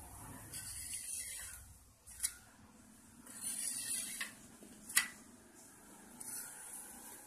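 Metal spatula scraping under a flatbread on an iron tawa in two short scrapes, with two sharp clinks of metal on the pan, the louder one about five seconds in.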